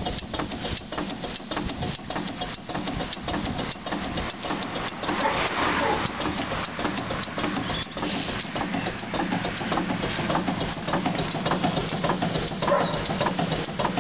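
Ruston Proctor SD class steam tractor standing under steam with its engine running, giving a steady, rapid rhythmic clatter.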